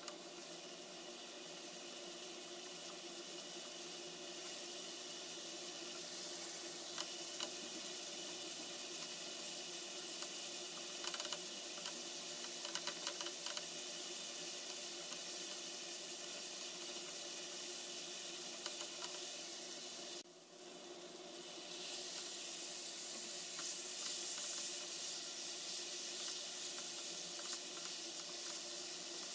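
Onion masala sizzling as it fries in a nonstick pan, with light scrapes of a silicone spatula stirring it. About twenty seconds in the sound breaks off briefly, then comes back as a louder, brighter sizzle once chicken pieces are frying in the pan.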